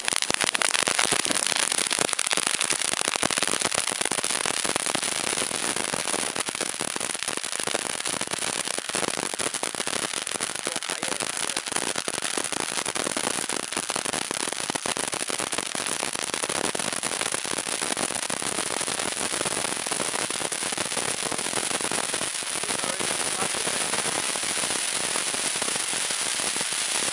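Ground volcano fountain firework burning: a steady rush of sparks spraying out of the cone, thick with fast crackling, holding at an even level throughout.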